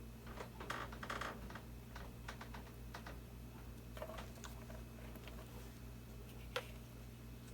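Faint, irregular light clicks and taps from sprinkling shimmer powder over a pour painting, a small cluster in the first second and one sharper click near the end, over a steady low electrical hum.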